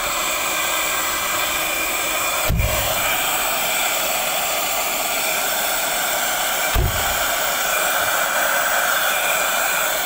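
Piranha 12-volt handheld car vacuum running steadily, a rush of air with a steady whine over it. Two dull knocks come about two and a half and about seven seconds in.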